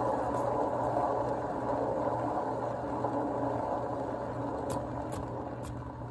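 A canvas spinner turning a freshly poured acrylic canvas makes a steady whir that fades gradually as the spin slows down.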